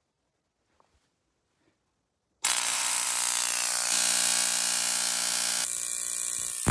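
Spark gap of a homemade 40-watt neon-sign-transformer Tesla coil firing: a sudden, loud, harsh electric buzz cuts in about two and a half seconds in, after near silence, and shifts in tone twice.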